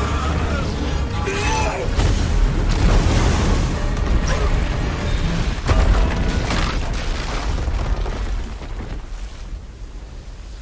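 Action-film soundtrack: orchestral score mixed with deep booms, rumbling and crashing debris and water, with a heavy crash about six seconds in as a stone tower topples. The whole mix fades down near the end.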